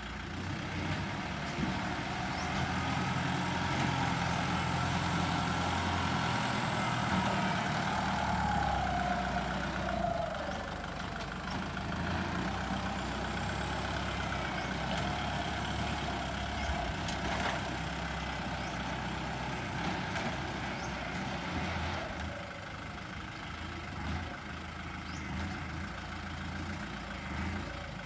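Kubota L50-series tractor's turbocharged diesel engine running steadily under load as it pulls a disc implement through sandy soil, with a whine that slides down in pitch about nine seconds in.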